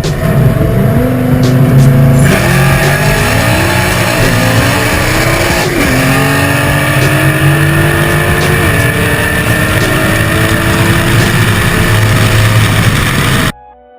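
Race cars accelerating flat out through the gears. The engine pitch climbs and drops back at shifts about 2, 4½ and 6 seconds in, then keeps climbing slowly and holds high before the sound cuts off suddenly near the end. Music plays underneath.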